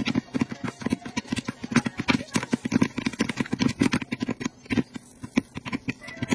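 Popcorn kernels popping in quick, irregular succession, many pops a second, inside a lidded electric stirring popcorn maker.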